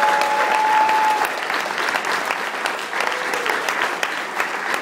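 Audience applauding, a dense patter of many hands clapping. A single held note from someone in the crowd rises above the clapping in the first second or so.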